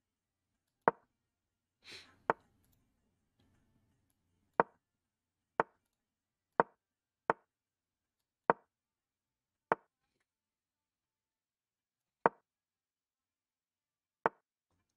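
Chess.com's digital piece-move sound: about ten short, sharp wooden clicks at uneven intervals, one for each move played in a fast blitz game. A faint short hiss comes about two seconds in.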